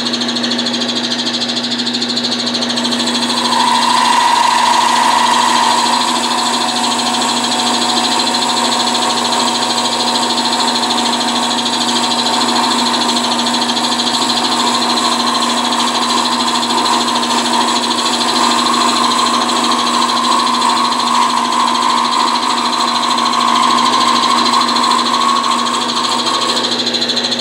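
Wood lathe running steadily while a D-Way bead-forming tool cuts a bead into a spinning spalted wood blank, rocked back and forth and throwing fine shavings. The cutting gets louder for a couple of seconds about four seconds in, and again through most of the last third.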